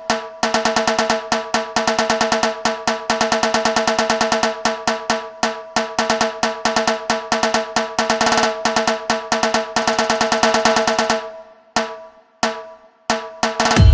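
Puneri dhol-tasha drumming in a DJ track: fast, dense tasha strokes rolling over steady pitched tones, breaking off about eleven seconds in into a few spaced hits, with a deep bass hit at the very end.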